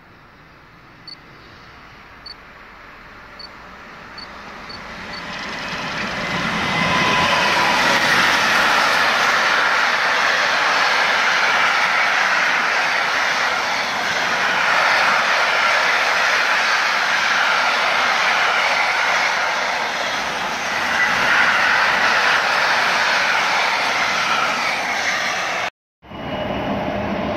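Container freight train approaching and then passing close by: its sound builds over several seconds into a steady, loud rolling noise of the wagons on the rails, then cuts off abruptly near the end.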